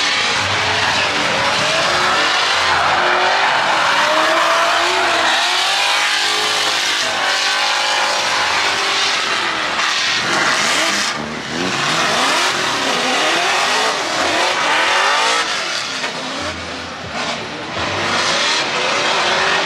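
Drift cars sliding with loud tyre squeal, their engines revving up and down over and over as the drivers work the throttle through the slide.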